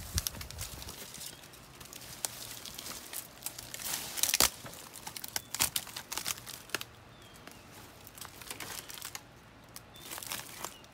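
Dry leaves and twigs crackling and rustling underfoot and against brushing branches: a scatter of irregular snaps and crinkles, with one louder snap about four seconds in.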